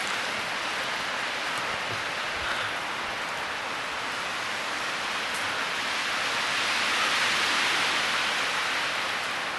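Wind rushing through woodland trees, a steady hiss that swells into a gust about seven seconds in and then eases.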